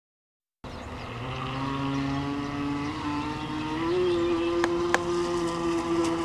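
Electric motor of a Thunder Tiger Atlantic Motor Yacht RC boat running under way, a steady whine that starts about half a second in and steps up in pitch about four seconds in as the throttle is opened. A couple of sharp clicks come near the end.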